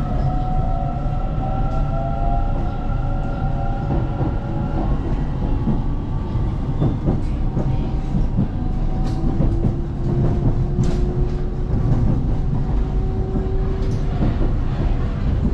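Dalian Metro Line 12 train running, heard from inside the car: a steady low rumble of wheels on rail with scattered clicks, and the traction motors' whine slowly rising in pitch as the train picks up speed after leaving the station.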